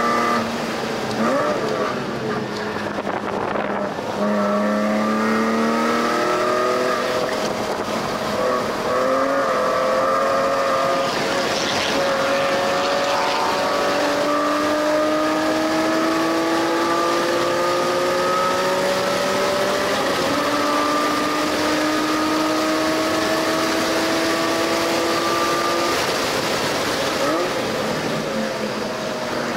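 2005 BMW E46 M3's S54 inline-six, with aftermarket headers and a custom Magnaflow rear section, under hard acceleration on track. The engine note climbs in long pulls, drops at gear changes about nine and twenty seconds in, and falls away near the end as the car slows.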